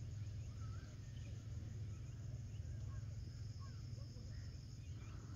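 Evening ambience of an open grassy field: insects trilling steadily in a high, pulsing drone, a few short bird chirps scattered through, over a steady low rumble.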